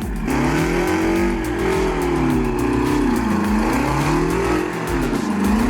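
A heavy logging truck's engine running under load, its pitch rising and falling several times as the revs change.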